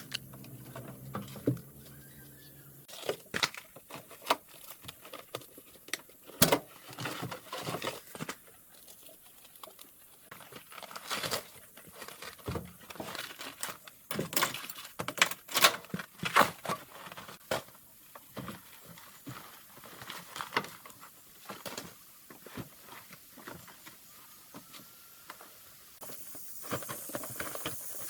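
Irregular clicks, taps and knocks of tools and parts being handled, sometimes several in quick succession, with pauses between. A steady hiss comes in near the end.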